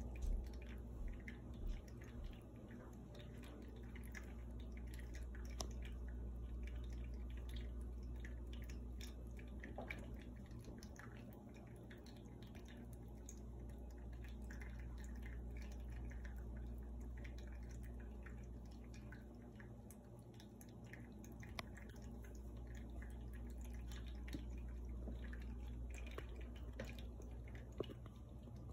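Quiet indoor room tone: a steady low hum with many faint, scattered ticks and a few small clicks.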